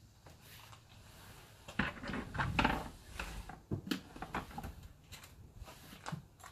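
Home-made fridge slide for a portable fridge being worked by hand: a run of metal clicks, knocks and scraping as the rails move, loudest about two and a half seconds in, then a single knock near the end.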